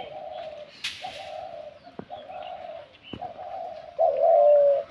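Spotted dove cooing: a run of about five low coo notes in a row, the last one the loudest.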